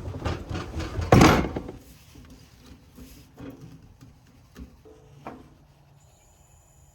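Handling noise at a propane griddle while it is being connected and lit: a loud clatter about a second in, then a few scattered clicks and knocks.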